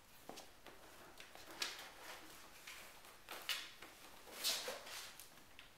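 Young kittens scampering and scuffling on a hardwood floor and a cardboard scratcher box: faint scattered paw taps and a few brief scratchy scuffles, the loudest a little past the middle.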